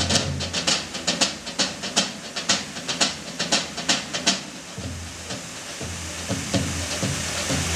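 Large stage drums struck with sticks in a fast, driving rhythm that breaks off after about four and a half seconds, leaving a steady hiss with only a few scattered hits.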